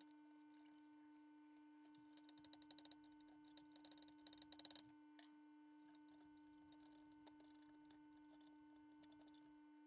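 Near silence: a faint steady hum, with scattered faint clicks in clusters a few seconds in.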